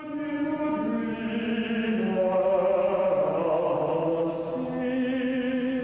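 Background music: voices singing slow, long-held chant-like notes together, changing pitch a couple of times.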